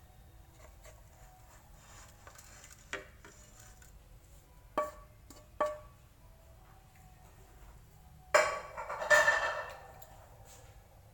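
Cookware clinking: a few short, sharp knocks of a frying pan against a ceramic plate as fried noodles are slid out, then a louder clatter of about two seconds near the end.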